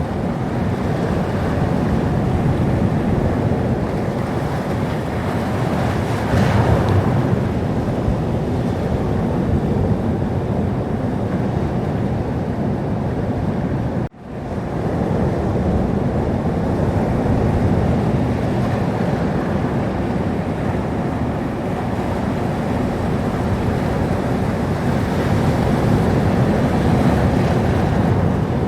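Sea surf: waves washing and breaking in a continuous rush, with one louder wave about six seconds in. The sound drops out suddenly for an instant about halfway through, then resumes.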